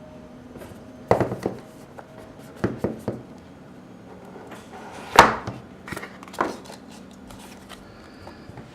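Packaging and objects being handled for an unboxing: several short knocks and clicks against a hard surface, the loudest a little past the middle.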